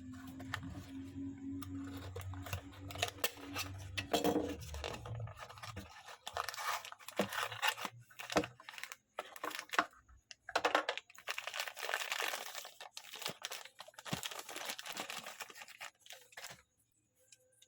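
Toy packaging being torn open and crinkled by hand, in irregular rustling and crackling bursts that stop shortly before the end. A low hum runs under the first few seconds.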